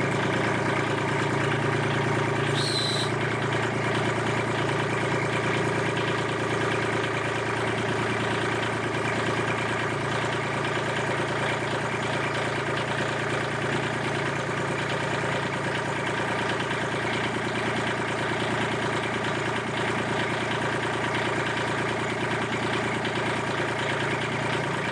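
Kubota L2501 compact tractor's three-cylinder diesel engine idling steadily, with a brief high-pitched sound about two and a half seconds in.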